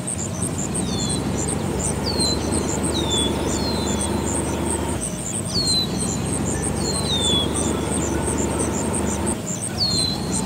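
Birds calling in short falling chirps, one every second or so, over steady high insect chirping and a low steady rumble.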